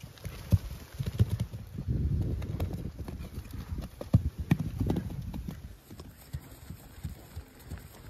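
Hoofbeats of a Belgian-cross-Quarter Horse gelding cantering on grass turf: irregular dull thuds, loudest in the middle as the horse passes close, then quieter as it moves away.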